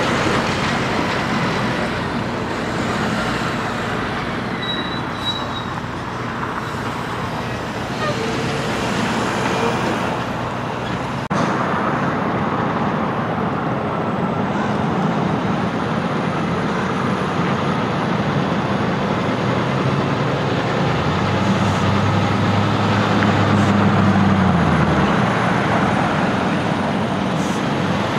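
Semi trucks driving past on a road. A car-carrier rig rolls by, and after an abrupt break a tractor-trailer turns through the intersection and pulls past. Its diesel engine note stands out clearly for a few seconds about three quarters of the way through.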